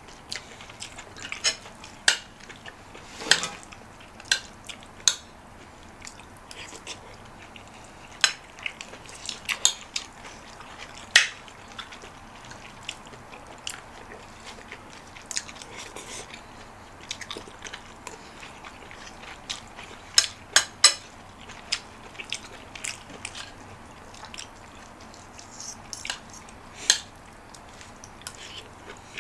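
Close-up eating sounds: chewing, with irregular sharp clinks of a spoon against a bowl, a few of them loud.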